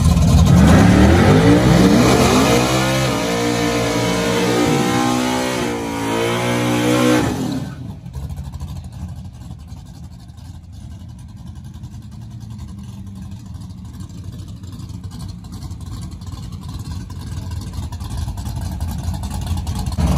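Fox-body Mustang drag car revving hard through a smoky burnout, the engine pitch climbing and wavering over the noise of spinning rear tyres. It cuts off suddenly about seven and a half seconds in, leaving a much quieter, steady low engine rumble that builds slightly near the end.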